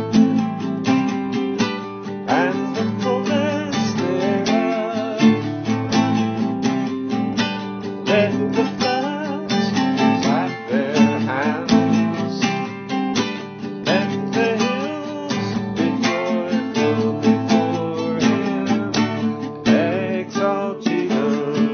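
Music: an acoustic guitar strummed in a steady rhythm.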